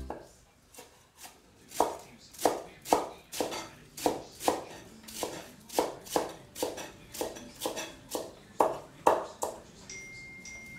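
Cleaver chopping leafy green stalks on a wooden cutting board: a steady run of sharp chops, about two a second, that stops about nine and a half seconds in. A faint steady high tone follows near the end.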